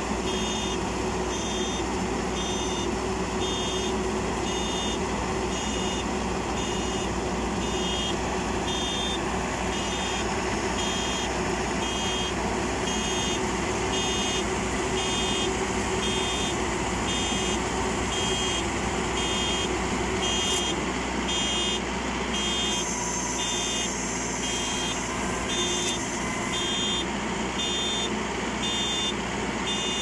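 FMWorld tracked mini combine harvester running steadily in the field while its electronic warning beeper sounds over the engine, an even string of high beeps about once every two-thirds of a second.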